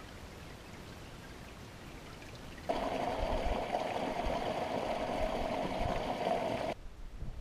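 Meltwater spilling over a small mud bank in a little cascade, a steady trickling splash that starts suddenly about three seconds in and cuts off abruptly near the end. Before it, only a faint low rumble.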